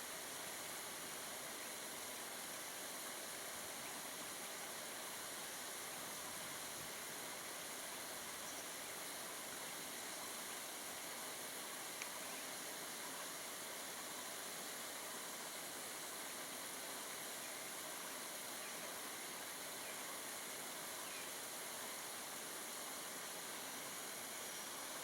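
Steady, even hiss of background noise with no clear source, and one faint click about halfway through.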